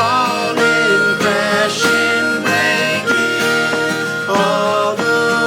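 Instrumental break in a folk-country song: a harmonica plays a run of held notes over guitar.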